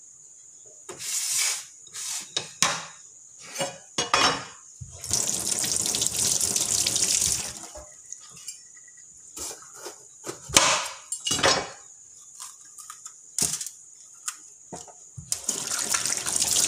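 Water running from a kitchen tap in two stretches, a couple of seconds in the middle of the first half and again starting near the end, with short rustles and knocks of handling in between.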